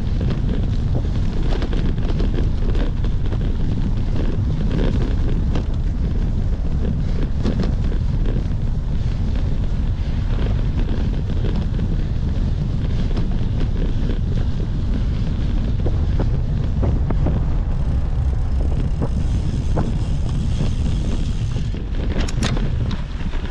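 Steady wind rush on the microphone of a camera carried on a cyclocross ride, a heavy low rumble with scattered clicks and rattles from the bike over rough ground.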